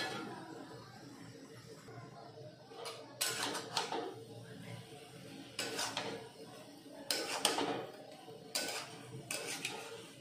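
Metal spatula scraping against an aluminium kadai as a thick cabbage, potato and egg curry is stirred, in several strokes each lasting about a second.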